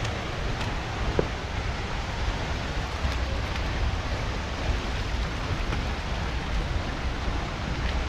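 Steady rushing of a waterfall, an even wash of falling water with a low, uneven rumble underneath.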